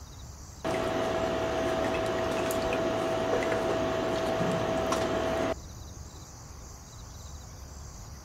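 Steady rush of running water for about five seconds, starting and cutting off abruptly, with a steady tone running under it.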